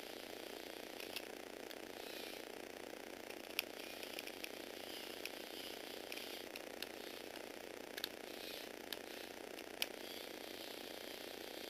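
Small electric motor and plastic gear train of a Lego Technic model motorbike whirring steadily as it drives, with scattered sharp clicks from the mechanism.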